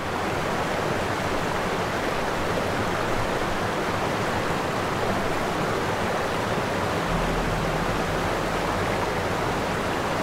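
Steady, even rushing of water, a continuous hiss without breaks or distinct splashes.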